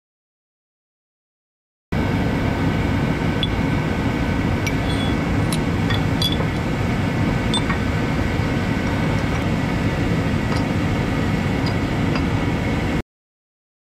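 Steady fan-like mechanical hum of a workshop, with a few light metallic clicks from the orange shop press and bearing driver as a differential bearing is pressed. The sound starts abruptly about two seconds in and cuts off near the end.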